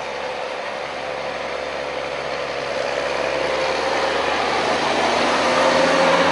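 Case IH tractor's diesel engine running steadily as it tows a tanker, growing louder as it draws near and loudest near the end.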